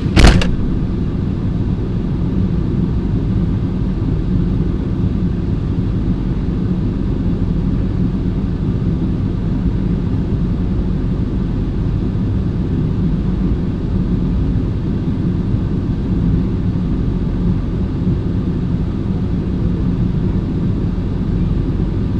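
Steady low rumble of the old Ford vehicle running. There is one sharp knock just after the start.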